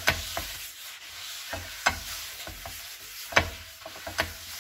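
Paper towel rubbing oil around a frying pan in circles, a steady scrubbing hiss with a few sharp clicks against the pan.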